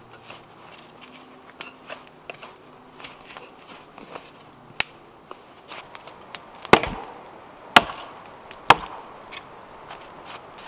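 Wood being chopped by hand: three sharp, loud blows about a second apart, with lighter cracks and clicks scattered around them.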